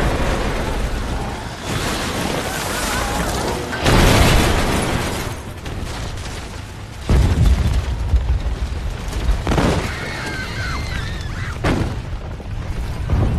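Earthquake destruction in a film soundtrack: a deep rumble of collapsing buildings and falling debris, with two heavy booming crashes about four and seven seconds in.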